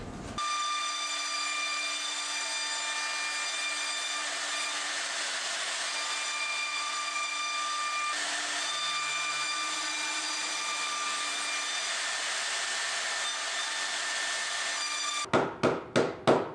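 High-speed spindle motor of a multi-purpose woodworking machine running steadily with a whine, starting and stopping abruptly. Near the end, about eight quick knocks of a hammer tapping a particleboard panel.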